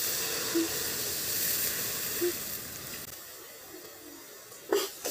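Water poured into a hot wok over a wood fire, hissing and sizzling as it flashes to steam; the hiss is loudest for about three seconds, then dies down. A brief sharp sound comes near the end.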